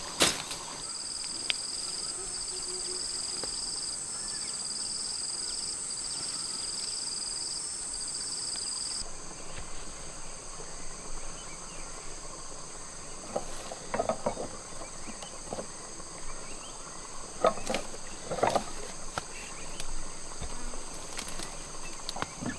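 High-pitched insect calls: a pulsing buzz and a steady whine over an outdoor background, the louder calls stopping about nine seconds in while fainter ones go on. Later come a few scattered clicks and knocks.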